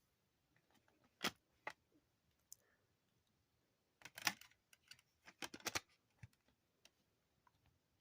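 Plastic DVD cases being handled during an unboxing: sharp clicks and snaps. There are two single clicks about a second in, then a busier run of clicks and brief rustling about halfway through.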